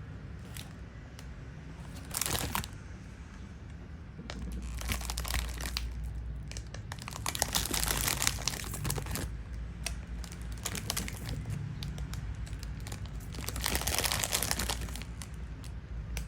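Crinkling and rustling handling noise that comes in several irregular bursts, the loudest about two seconds in, around the middle, and near the end, over a steady low hum.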